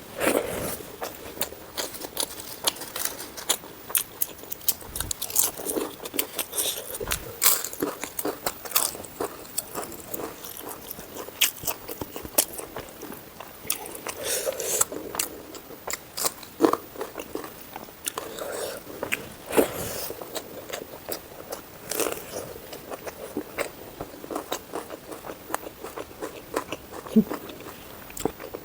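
Close-miked eating: irregular chewing and biting, with crisp crunches and sharp, wet mouth clicks.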